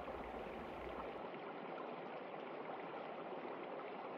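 Steady rushing of a shallow stream running over rocks, with no speech. A faint deep rumble beneath it stops about a second in.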